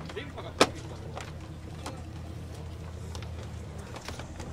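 A boat engine idling with a steady low hum, with scattered knocks and clicks on top and one sharp knock about half a second in.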